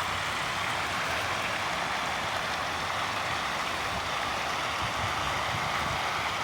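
Water from a fountain falling and splashing in a steady hiss.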